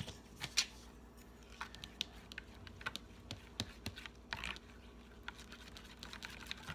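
A plastic spoon stirring a wet glue and shaving-cream slime mixture in a plate, with many irregular light clicks and taps as the spoon knocks against the plate.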